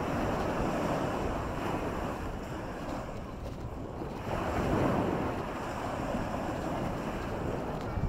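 Small waves breaking and washing up on a sandy shore, swelling twice: near the start and about halfway through. Wind buffets the microphone underneath.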